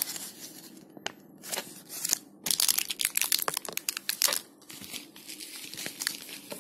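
Paper insert card and small plastic ring bags crinkling and rustling as they are handled, on and off, busiest from about two and a half to four and a half seconds in.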